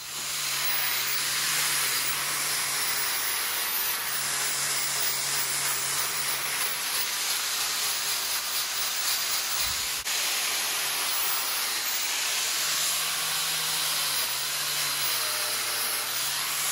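Angle grinder running with its wheel against a rusty steel drive shaft, grinding the rust off: a steady hiss over the motor's hum. There is a short break about ten seconds in.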